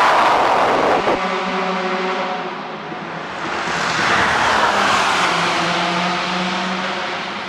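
Le Mans prototype race car passing at speed, its engine note fading as it moves away. A second surge of engine and tyre noise rises and falls about four to five seconds in, leaving a steady engine tone in the distance.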